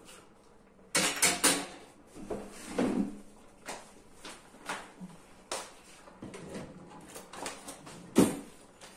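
Irregular knocks and clicks of kitchen things being handled, with a louder clatter about a second in and a sharp knock near the end.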